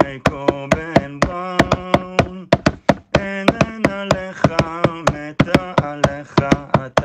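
Pop song: a singing voice holding long, steady notes over a fast beat of sharp percussive clicks.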